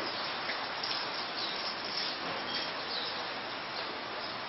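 Dairy barn ambience: a steady noisy hiss with a few faint, high bird chirps.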